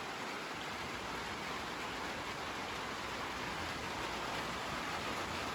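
Steady downpour of thunderstorm rain, an even hiss.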